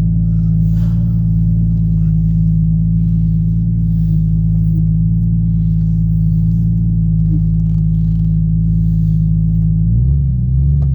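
Jeep Cherokee engine idling with a steady, loud low hum, its pitch wavering near the end; the owner finds it idling a bit high.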